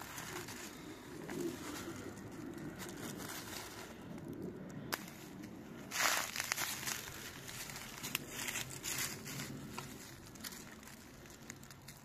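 Dry fallen leaves and forest litter rustling and crackling as a hand digs a mushroom out of the ground, with a louder crunch about six seconds in.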